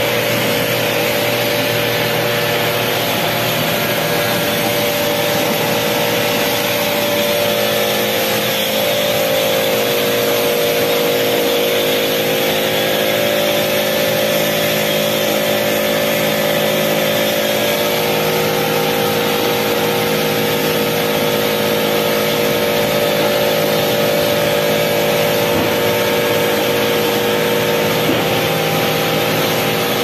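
Pressure washer running steadily: a constant motor tone under the hiss of the water jet.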